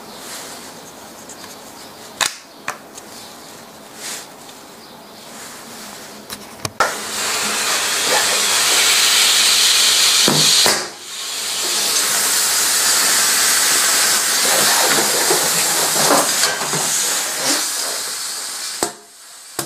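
A few light clicks and knocks of plastic and metal parts being handled, then a loud, long hiss of compressed air that starts about seven seconds in, breaks off briefly partway through, and stops just before the end.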